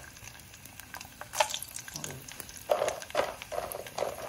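Pieces of pork skin frying in very hot oil in a pot, sizzling steadily with scattered sharp pops and crackles as the skins start to burst into pururuca. The loudest crackles come about a second and a half in and again around three seconds in.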